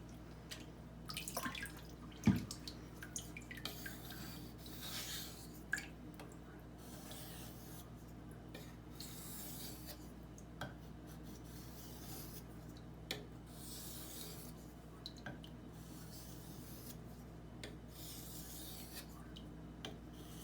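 Steel knife blade sharpened on a wet Norton water stone: repeated soft scraping strokes of the edge across the stone, with a few sharp clicks and one louder knock about two seconds in. A steady low hum runs underneath.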